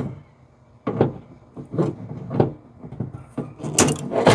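A series of sharp clicks and clunks, five or six spaced irregularly, from hand tools and parts being handled inside a liftgate's latch mechanism.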